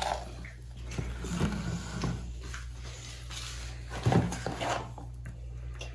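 Soft handling sounds of a plastic toy ice cream machine: parts being moved and a metal scoop scraping soft ice cream out of its plastic tub, with a light knock about four seconds in.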